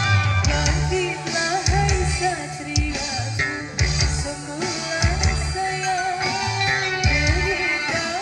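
Kecimol music, the Sasak band style of Lombok: loud drums with heavy bass hits under electric guitar and a wavering, ornamented melody line.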